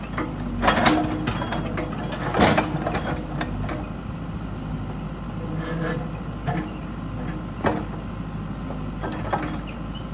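Excavator engine running steadily as its bucket grabs a junk lawn mower, with sharp metal clanks and crunches of steel on steel. The loudest clank comes about two and a half seconds in.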